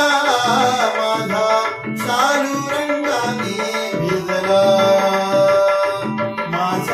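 Male voice singing a Marathi devotional gaulan in raag Yaman, with tabla keeping the eight-beat keharwa rhythm.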